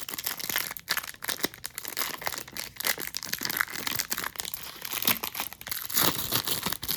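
Wax-paper trading card pack being torn open by hand and the wrapper crinkled and crumpled, a continuous crackling with many sharp irregular crackles.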